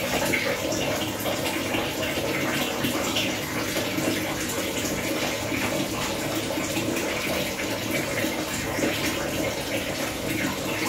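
Steady sound of running water, an even rushing hiss with a light crackle of splashing, unchanging throughout.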